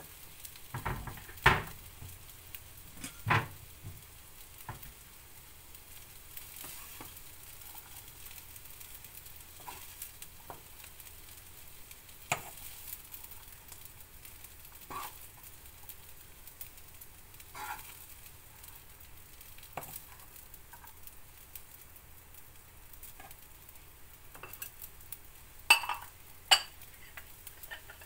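Spatula scraping and tapping as fried rice is scooped from the pan and packed into a ceramic bowl, over a faint sizzle from the hot pan. It comes as scattered clinks and knocks, with a couple of sharp ones near the end when the bowl is turned out onto a plate.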